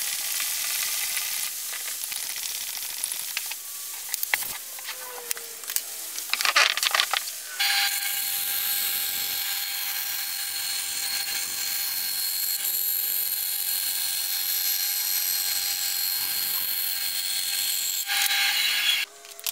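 Hand pump forcing air into an exercise ball in hissing strokes. About eight seconds in, a bandsaw running with a steady whine takes over, its blade cutting a curve through thin plywood, until it cuts off near the end.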